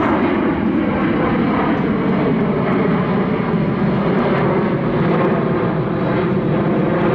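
Boeing P-8 Poseidon's twin CFM56 turbofan jet engines, a loud, steady roar as the aircraft flies its display.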